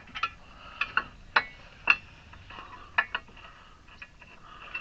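Irregular metallic clicks and clinks, about a dozen spread unevenly, as steel suspension parts and tools are handled and a part is wiggled into alignment during front hub and CV axle reassembly.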